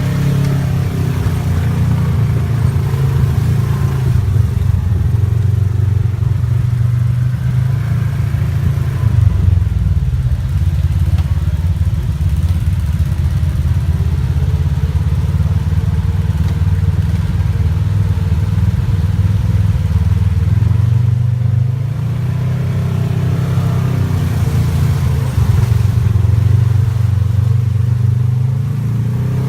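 ATV engine running under way, a steady low drone whose pitch rises and eases back a few times as the throttle changes.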